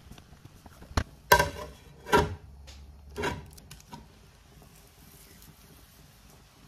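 Cookware clatter: a handful of sharp metal clanks, some with a brief ring, between about one and four seconds in, as a spatula and an aluminium lid knock against a non-stick wok of fried rice.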